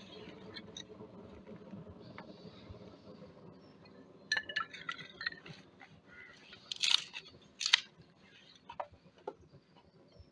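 Small pieces of dry wooden kindling clattering and cracking as they are handled and snapped by hand. There are scattered clicks, then two loud sharp snaps close together about two-thirds of the way through, and a few lighter ticks after.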